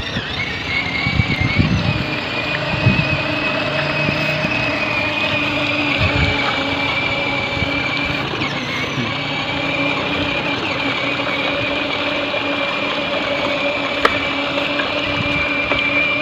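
Battery-powered ride-on toy walking tractor driving along, its electric motor and gearbox giving a steady whine at several fixed pitches. A single sharp click comes near the end.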